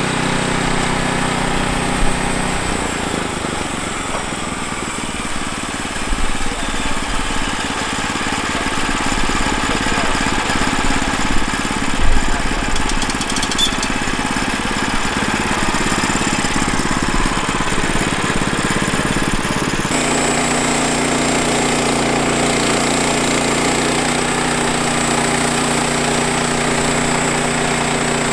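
Kohler gasoline engine of a Woodland Mills HM122 portable bandsaw mill running steadily, with a few sharp knocks in the middle. The sound changes abruptly twice, becoming rougher about two seconds in and returning to a steady engine note about twenty seconds in.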